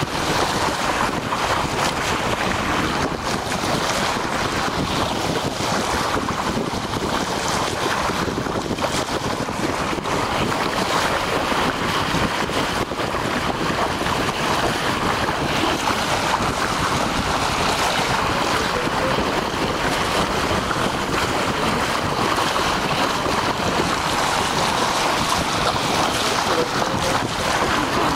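Steady rush of sea water along the bow of a moving boat, with wind buffeting the microphone.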